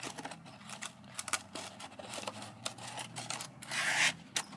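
Handling of packaging: a run of small clicks and taps, with a longer rustle about three and a half seconds in, as the yo-yo's accessories are put back into their box.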